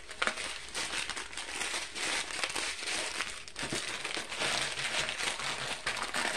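Clear plastic packaging crinkling in the hands: a strip of sealed packets of diamond-painting drills being handled, with a continuous run of small crackles.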